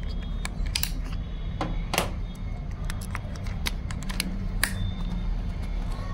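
Scattered metallic clicks and clacks of a Precihole PX100 Achilles PCP air rifle's action being handled by hand, the loudest about two seconds in, over a steady low hum.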